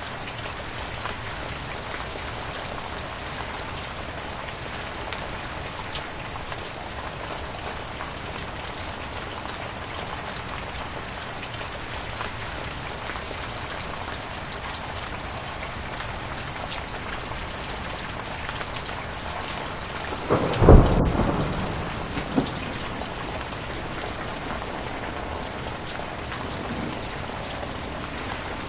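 Steady heavy rain, with a single loud thunderclap about twenty seconds in that rumbles off over a second or two, followed by a smaller crack.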